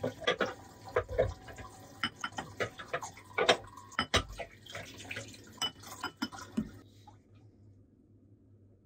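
Wet glass bowls clinking and knocking as they are set down and stacked upside down to drain, with water dripping. The knocks stop about seven seconds in.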